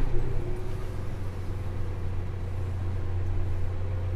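Farm machine's engine running steadily while driving, a constant low drone with a faint higher hum.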